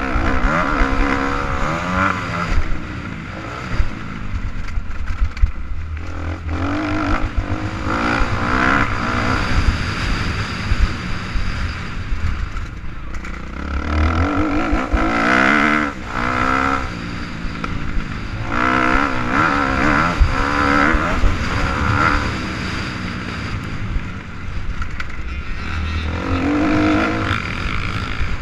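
Motocross dirt bike engine revving up and dropping back again and again as the rider accelerates out of turns and rolls off, heard from a helmet-mounted camera at speed with a constant low rumble under it.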